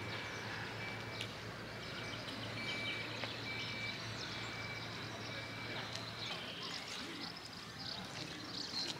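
Outdoor ambience: birds chirping, with one repeating a short high note, and faint voices over a steady low hum that stops about two thirds of the way through.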